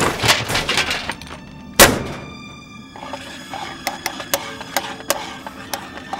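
Film soundtrack: a heavy thud and a second of clattering scrape, a second loud thud about two seconds in, then a run of sharp ticks about twice a second, all over a held, droning music score.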